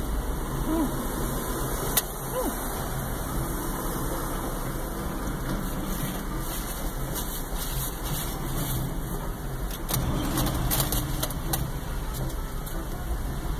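Steady low hum of an idling car engine, heard from inside the cabin, with a few light clicks about ten seconds in.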